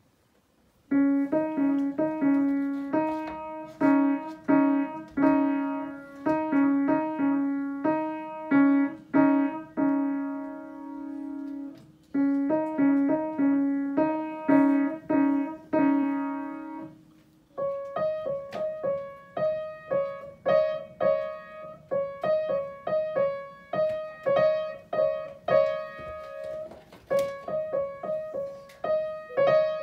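Upright acoustic piano played one note at a time in a simple, slow melody on a few keys, beginning about a second in. After a brief break about two-thirds of the way through, a second tune starts higher up the keyboard.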